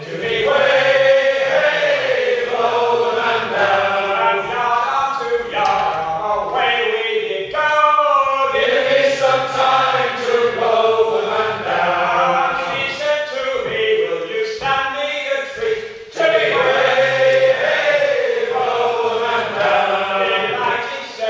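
A group of men singing a sea shanty unaccompanied, with a short break between phrases about three-quarters of the way through.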